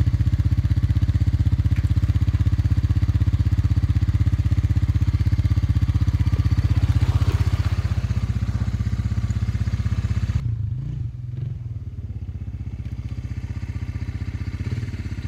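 1986 Honda FourTrax ATV's single-cylinder engine idling steadily with an even pulse. About ten seconds in the sound drops quieter and thinner.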